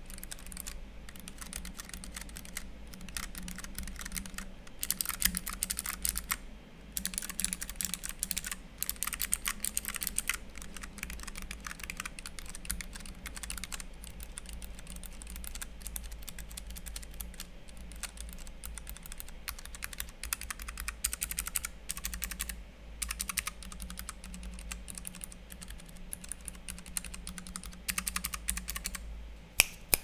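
Typing on a Keychron K3 low-profile mechanical keyboard fitted with six kinds of Keychron low-profile optical switch, one kind per row: brown, red, white, black, blue and orange. Rapid keystrokes come in bursts with short pauses, some stretches louder and sharper than others.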